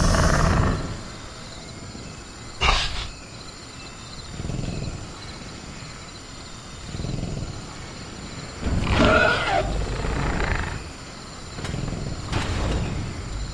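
Sound-effect velociraptor growling and snarling in separate bursts, the loudest growl about two thirds of the way through, with a brief sharp cry about three seconds in. A steady high cricket chirr runs underneath.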